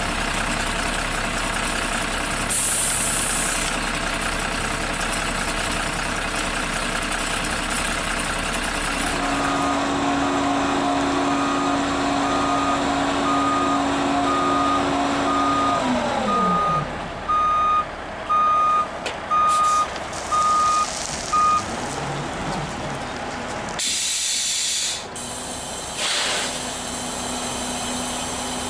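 Heavy diesel truck with dump semi-trailer running, its back-up alarm beeping in a regular series through the middle. Its engine note holds steady, then winds down partway through. Air brakes release with a loud hiss near the end.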